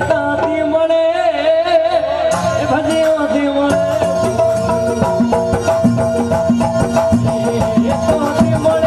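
Rajasthani folk bhajan performed live: a male voice sings over the steady reedy drone of a harmonium, and drum beats come in about two seconds in and keep a quick rhythm.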